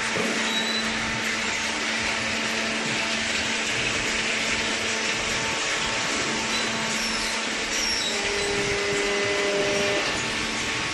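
Automatic-tie cardboard baler running: a steady mechanical noise with a constant low hum.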